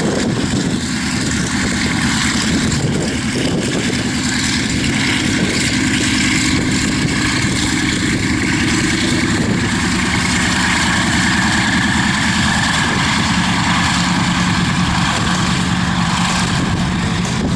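F4U Corsair's Pratt & Whitney R-2800 radial engine running steadily at low taxi power, with small slow shifts in pitch.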